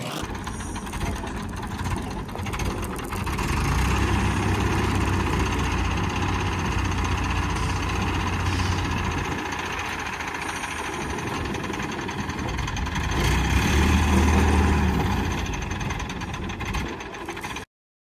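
Diesel engine of an ACE 12XW Hydra mobile crane running as it handles a piling tool, its low hum rising twice under load, about 4 to 9 seconds in and again about 13 to 15 seconds in. The sound cuts off suddenly near the end.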